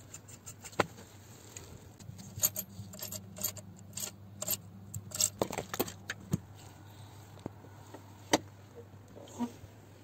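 Light metallic clinks and knocks from handling the turbocharger in an engine bay, scattered irregularly and densest in the middle, over a steady low hum.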